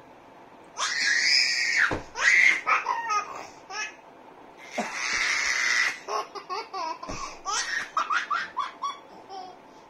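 A baby laughing in repeated bursts of quick, choppy giggles, broken by two longer high-pitched calls, about a second in and about five seconds in.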